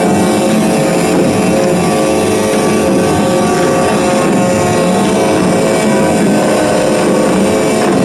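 Many semi-truck air horns blaring together in a loud, steady chord of overlapping tones, held without a break.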